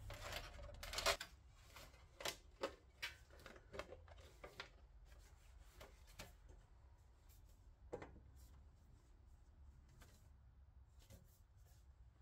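Faint scattered clicks, taps and rubbing of a copper tubing coil being fitted into a thin sheet-metal sleeve, with a sharper knock about eight seconds in.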